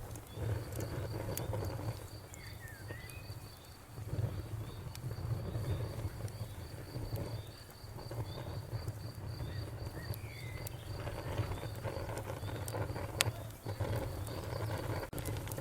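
Campfire burning outdoors with a low rumble that swells and fades and a few sharp pops, while a cricket chirps steadily at about four chirps a second; a bird gives a short call twice.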